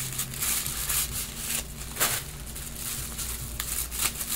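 Gift wrapping rustling and crinkling as it is pulled open by hand, with several sharp crackles.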